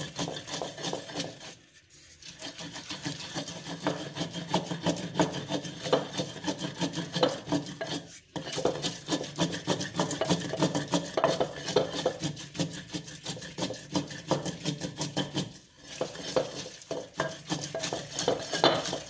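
Wooden pestle grinding wet mint and coriander leaves against the inside of a clay mortar (kundi). It makes quick, continuous scraping and pounding strokes, with short pauses about two seconds in, near the middle and about three-quarters through.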